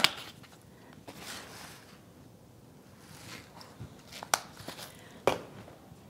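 Red pepper flakes shaken from a plastic-capped spice jar into a bowl of sauce: two soft shaking swishes, then a few sharp clicks and knocks from the jar and its cap.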